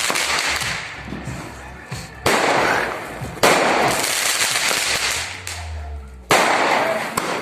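Multi-shot Diwali skyshot fireworks going off: three sudden loud bangs, about two, three and a half and six seconds in, each followed by about a second of fading crackle.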